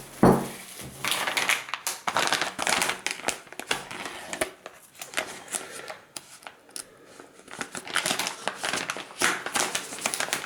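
Packaging crinkling and rustling in irregular crackles as the dash cam kit is unwrapped by hand, with a quieter stretch near the middle.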